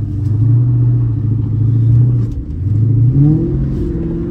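Freightliner FLD semi truck's diesel engine running at a steady note, then dipping and climbing in pitch about two and a half to three and a half seconds in as it revs up again.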